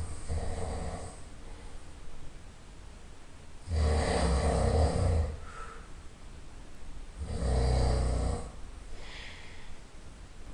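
A person snoring loudly in a steady rhythm: three rattling snores about three and a half seconds apart, with quieter breaths between them.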